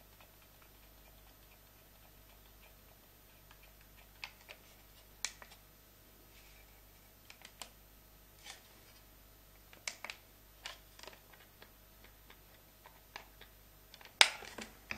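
Small plastic clicks and taps from handling a Computherm wireless room thermostat: its buttons being pressed and its casing and front flap handled, a few clicks a second apart. The loudest is a sharp plastic click near the end.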